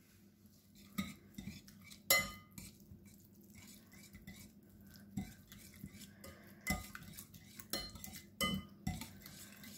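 Wire whisk stirring a wet batter of egg, yogurt, butter, honey and grated carrot in a glass bowl, with irregular clinks of the whisk against the glass.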